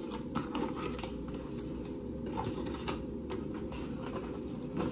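Cardboard box being handled and its flaps opened: light scattered rustles and small clicks over a steady low room hum.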